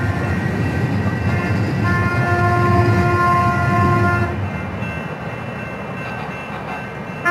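San Diego Trolley light-rail trains rumbling along the tracks at a grade crossing, with one steady horn blast of about two seconds from a trolley near the middle.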